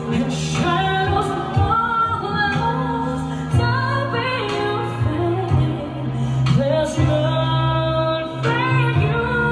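Female vocalist singing a pop ballad with band accompaniment, the melody held in long, gliding notes over a steady bass.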